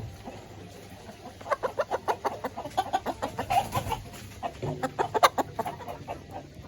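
Village chickens clucking, a rapid run of short clucks starting about one and a half seconds in and another burst around five seconds in.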